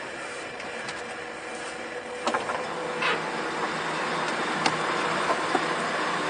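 Steady din of idling truck engines on a ferry's enclosed vehicle deck, echoing off the steel, growing a little louder after about two seconds. A few sharp metallic clanks come through, the first about two seconds in.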